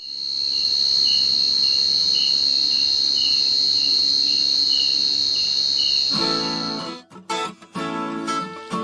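Crickets trilling at night, a steady high trill with softer chirps pulsing about twice a second. About six seconds in, the trill stops and acoustic guitar strumming starts, the intro of a song.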